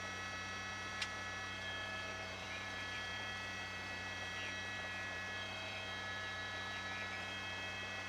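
Steady news-helicopter cabin noise picked up through the pilot-reporter's headset microphone: a constant hum with a set of high, unchanging whining tones. A single short click comes about a second in.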